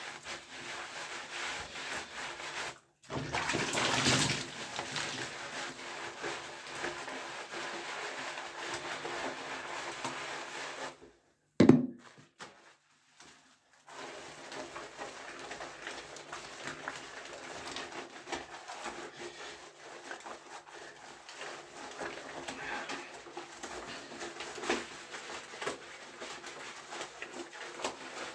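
Washing in a small shower: wet rubbing and sloshing of a soapy washcloth on skin and hair, with a sharp knock about twelve seconds in. The sound cuts out to near silence twice, briefly about three seconds in and for a few seconds after the knock.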